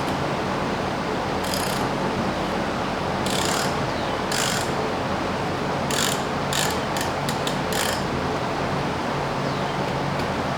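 Hand socket ratchet clicking in short bursts of strokes as engine bolts are worked loose, with a cluster of quick strokes a little past halfway, over a steady background hiss.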